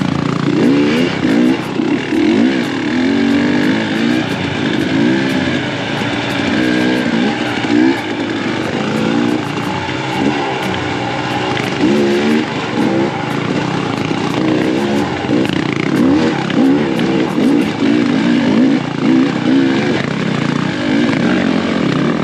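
Dirt bike engine revving up and down over and over, its pitch rising and falling every second or so as the throttle is opened and closed, with scattered sharp clicks.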